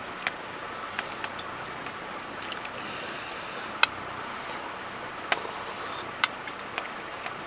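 A few scattered sharp clicks and ticks over a steady quiet rushing noise, from eating with chopsticks out of a stainless steel bowl beside a burning wood stove.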